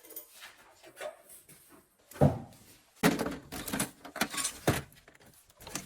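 Tools and hard objects being handled: one loud thump about two seconds in, then a run of knocks and clattering.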